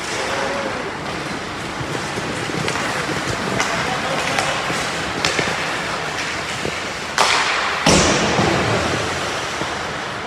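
Ice hockey play in an echoing indoor rink: skates scraping and sticks and puck clacking on the ice, with two loud bangs about seven and eight seconds in.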